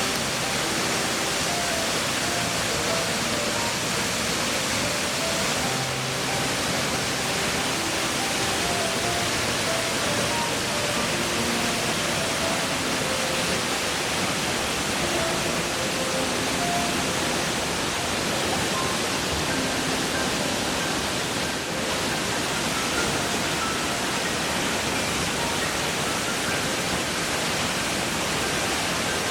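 Waterfall's steady rush of falling water, with faint soft melodic notes underneath.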